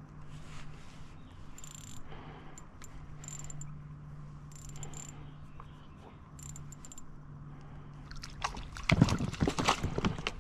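Rustling and splashing in a floating weed mat as a hooked crappie is worked up through a hole in the vegetation by hand. The noise is loud and crackling in the last two seconds, after several seconds of faint ticks and rustles over a low steady hum.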